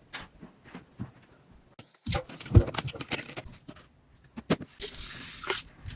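Scattered light knocks and taps, loudest in a cluster about two to two and a half seconds in.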